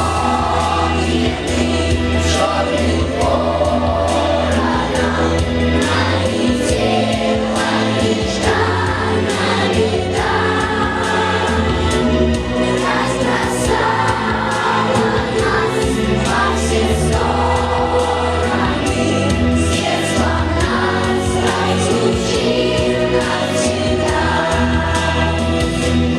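A song with a choir singing over instrumental backing music.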